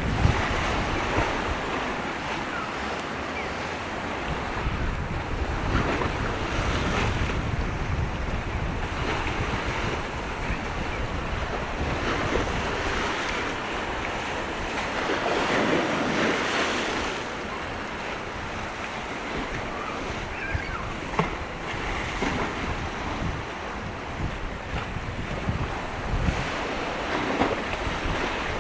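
Strong gusty wind buffeting the microphone, a continuous rushing noise that swells and eases, with a louder gust a little past halfway.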